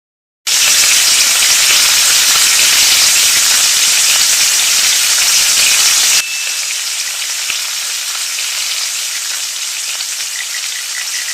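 A steady, crackling hiss like sizzling starts about half a second in. About six seconds in it cuts abruptly to a quieter, duller hiss that runs on.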